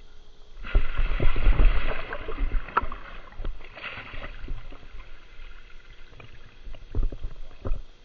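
A scuba diver enters the water with a big splash about a second in, followed by water churning and sloshing around him as he comes back up.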